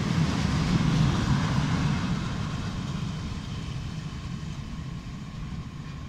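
Freight train of timber-laden open gondola wagons rolling past on the rails: a steady rumble of wheels on track that fades as the last wagons pull away.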